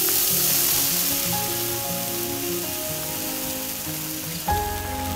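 Thick tomato-and-cream rose pasta sauce sizzling as it is poured into a hot pan over a gas flame: a steady hiss that eases off after a couple of seconds.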